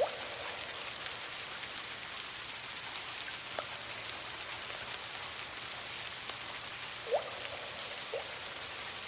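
Soft, steady rain hiss, with a few water drops plinking now and then: short, clear notes that rise in pitch, at the start and about three and a half, seven and eight seconds in.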